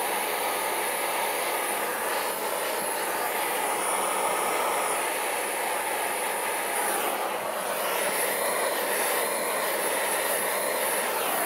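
Handheld gas torch burning with a steady rushing hiss, its flame played on a jet-pump impeller and driveshaft to heat the seized threads loose.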